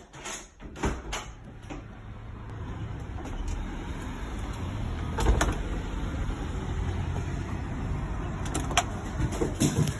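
Footsteps and knocks from handling the phone, then a steady low rumble, with sharp clicks of a front door's lever handle and latch near the end.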